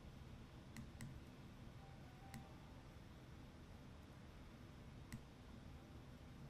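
Faint clicks of a computer mouse, four of them spread over several seconds, against near-silent room tone.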